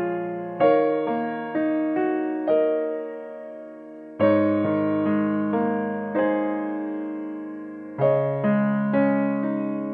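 Background piano music: a slow melody of single notes over chords that ring and fade, with fresh chords struck about half a second in, about four seconds in and about eight seconds in.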